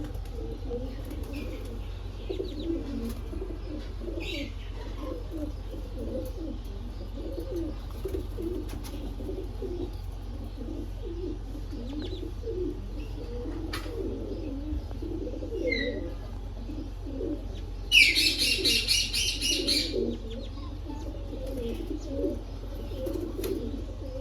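Birds: low cooing runs on throughout. About 18 seconds in, a loud, harsh parrot call of rapid repeated pulses lasts about two seconds.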